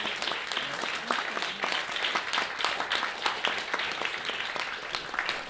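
Audience applauding: a dense, steady run of hand claps.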